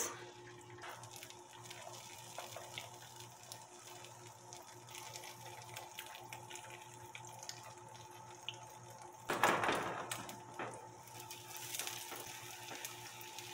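Beaten eggs frying in olive oil in a hot frying pan: a faint, steady sizzle and crackle, with a louder burst of sizzling about nine seconds in.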